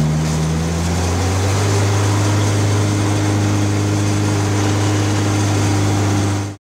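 Mini park train running, heard from inside its carriage: a steady engine drone with a deep hum, its note shifting slightly about a second in. It cuts off suddenly at the end.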